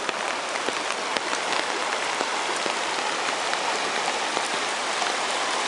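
Steady rain falling, with scattered drops ticking close by, over the rush of a rain-swollen seasonal creek running fast and muddy.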